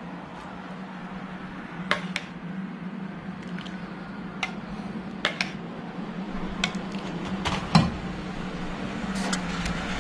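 Light clinks and taps of a ceramic bowl and spoon against each other and the pot as thick chocolate ganache is poured slowly onto crushed biscuits, about ten scattered sharp clicks, the loudest near the end. A steady low hum runs underneath.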